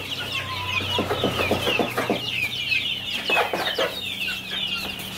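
A flock of young KUB chicks, about 25 days old, peeping without pause: many short, high, falling cheeps that overlap one another.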